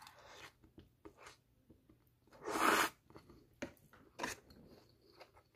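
Close-up eating sounds of chow mein noodles: a slurp as the noodles go in, then chewing with small wet mouth clicks. About two and a half seconds in comes one louder, half-second breathy rush.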